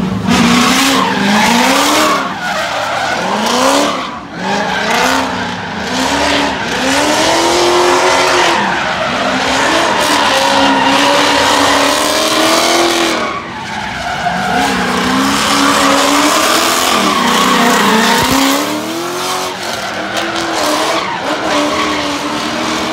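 Drift car sliding with its tyres screeching, while the engine revs climb and drop again and again, about once a second.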